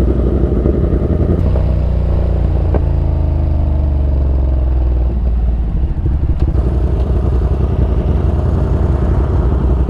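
Yamaha R1M sport bike's crossplane inline-four engine running on the road, under heavy wind rumble; the engine note drops from about three to five seconds in as the bike slows.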